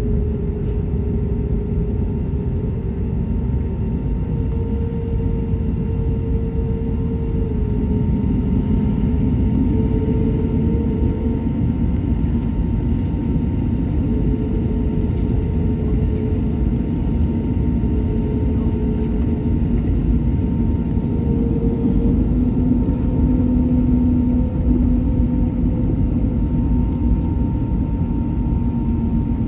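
Airliner cabin noise during taxi: the jet engines hum steadily at low power over a deep rumble, with a few held tones that shift slightly in pitch now and then.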